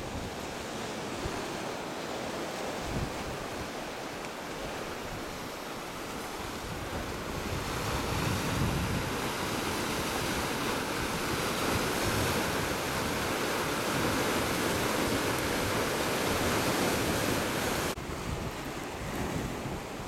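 Sea surf washing and breaking over shoreline rocks, with wind buffeting the microphone. The surf grows louder about a third of the way in and drops off suddenly near the end.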